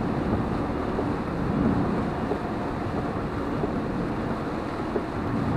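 Steady road noise inside a car driving in heavy rain: tyres on the wet road and rain on the car.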